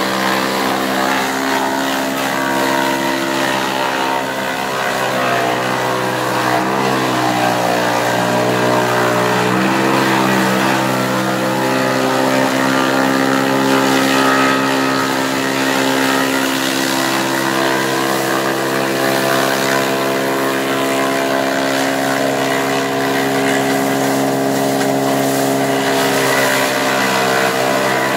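Motor-driven forage chopper running steadily as sugarcane and napier grass stalks are fed into it. Its note sags and wavers for a few seconds under the load, then steps back up about ten seconds in.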